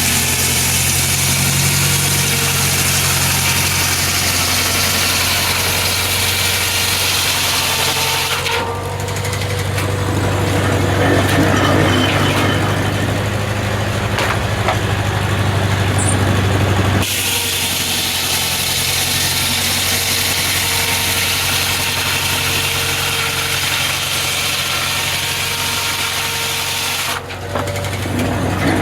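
An engine running steadily at a constant speed. The sound switches abruptly several times between a low, even hum and a harsher, brighter noise.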